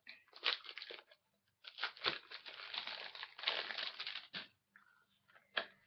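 Crinkling and rustling of packaging in bursts as a spiral notebook is taken out, dying away after about four seconds, then a single sharp click near the end.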